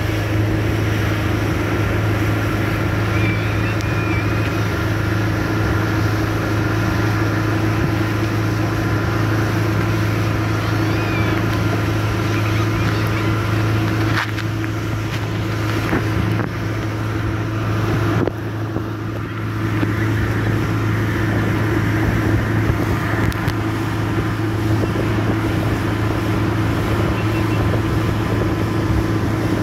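Mercury outboard motor running steadily at speed while towing, a constant low hum, over the rush of the boat's wake and wind on the microphone.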